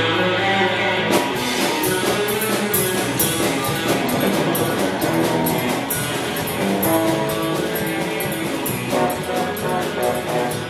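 Live rock band playing, with electric guitar and bass carrying the tune. The drum kit and cymbals come in about a second in and keep a steady beat.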